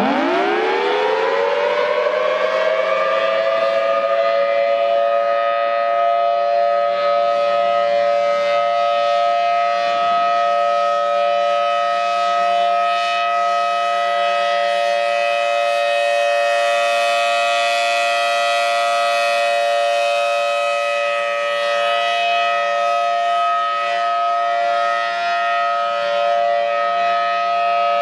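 Civil-defense outdoor warning siren winding up over about three seconds, then holding a loud, steady chord of several tones.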